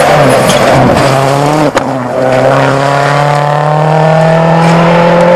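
Ford Focus WRC rally car's turbocharged four-cylinder engine passing and pulling away. Its note wavers on and off the throttle through the bend, a sharp crack comes near two seconds in, and then the engine note rises steadily as the car accelerates away.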